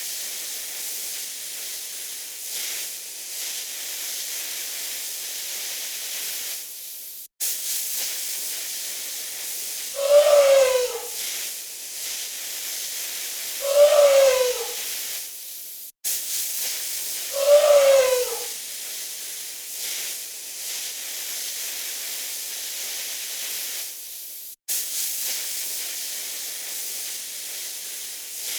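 A steady, high hiss, the generated buzzing of a hornet swarm, broken three times by short animal cries that fall in pitch, about four seconds apart in the middle. The hiss drops out for an instant at three points.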